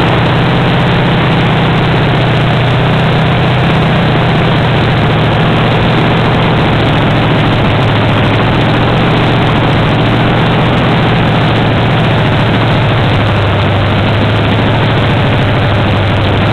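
Chevrolet 283 small-block V8 running steadily, its exhaust coming straight out of open tube headers with no mufflers.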